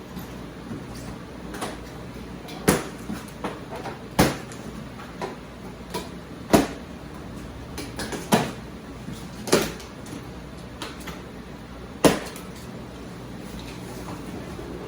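Irregular knocks and clunks of lift parts and packing being handled and set down during unboxing, with about half a dozen louder sharp thuds between quieter taps.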